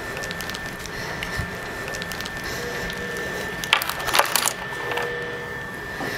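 Hospital ward background: a steady high-pitched whine, a few short beeps, and a burst of crackling clatter about four seconds in.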